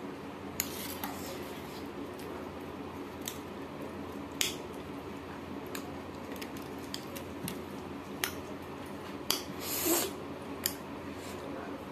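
A person eating by hand at close range: chewing and mouth sounds with scattered sharp, crisp crunches and clicks, a cluster of the loudest near the end.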